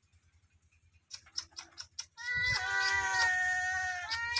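Domestic cat meowing: after a quiet first second and a few faint clicks, one long drawn-out meow of about two seconds starts a little past halfway, and a second meow begins near the end.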